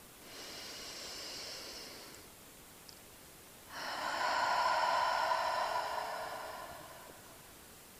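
A woman takes one deep breath in through the nose, a soft hiss lasting about two seconds. After a short pause she breathes out through the mouth in a longer, louder breath that fades away.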